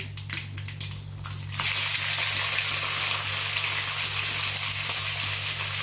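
Raw liver pieces going into hot oil in an iron kadai with curry leaves. A few crackles come first, then about a second and a half in a loud, steady sizzle starts as the wet liver hits the oil.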